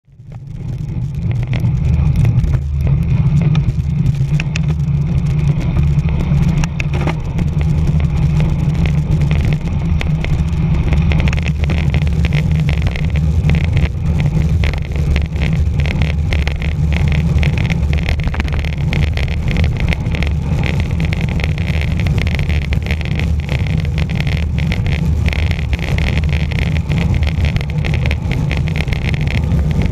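Wind rushing over a bicycle-mounted camera's microphone on a fast road descent: a steady low rumble with hiss and road noise, fading in over the first second.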